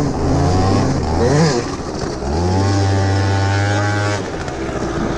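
Small two-stroke scooter engine of an MBK Booster ridden off-road, running under way and revving up and down. The pitch rises about two seconds in and drops again about four seconds in.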